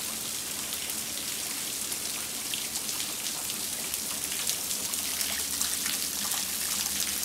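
Steady heavy rain falling on a flooded driveway and its puddles: a dense hiss of drops flecked with countless small ticks.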